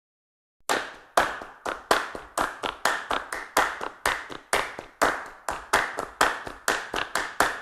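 Hand claps starting about half a second in and running in an uneven repeating pattern, about three claps a second, each trailing off in the reverberation of a large room, laid down as the rhythm intro of a pop song.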